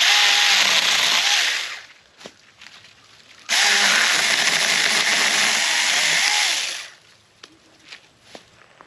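Saker mini battery-powered electric chainsaw running in two bursts, about two seconds and then about three and a half seconds, cutting through branches.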